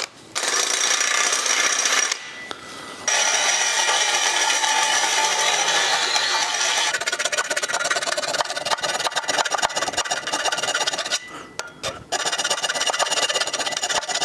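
Power drill boring a pilot hole through a metal exhaust pipe, pausing briefly about two seconds in and running again. From about seven seconds in, a round file rasps in rapid strokes inside the hole to enlarge it.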